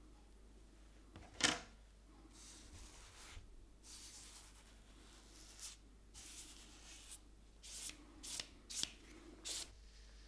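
Paper being handled and rubbed as a damp watercolour is smoothed down onto its Japanese paper lining: a sharp tap about one and a half seconds in, then a run of short swishing strokes over the paper, coming closer together near the end.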